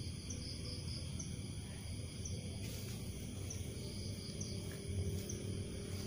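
Crickets chirping: short, high chirps repeating about once a second over a steady low background rumble.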